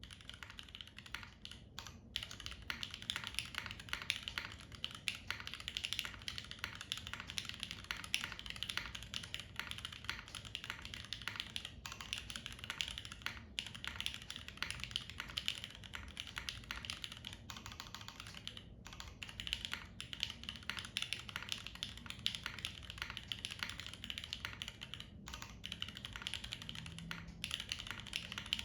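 Fast, steady typing on a Keycult No.2 TKL mechanical keyboard fitted with Cherry MX Nixie switches: a dense stream of keystroke clacks with a few brief pauses.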